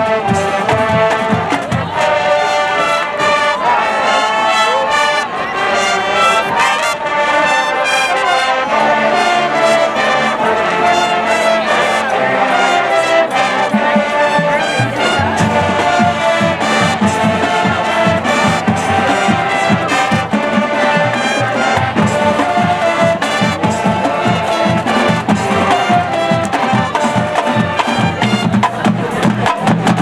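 High school marching band playing a field show, with brass carrying the melody. About halfway through, a heavier low brass and drum beat joins in.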